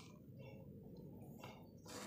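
Near silence with faint handling noises: light rustles of hands moving a pen, a sheet and clay discs on a tabletop, a slightly clearer rustle near the end.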